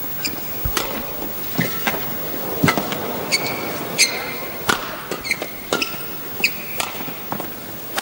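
Badminton rally: sharp cracks of rackets striking the shuttlecock, traded back and forth about once a second, with short high squeaks of shoes on the court and the hum of a large hall.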